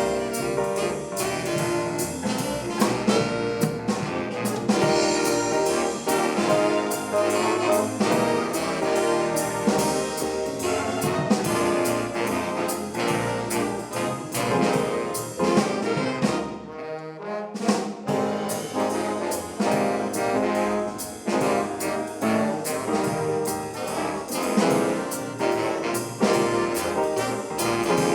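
High school swing band playing a big-band jazz number, the brass section with trombones and trumpets out front over a drum kit, the drums dropping out briefly a little past halfway.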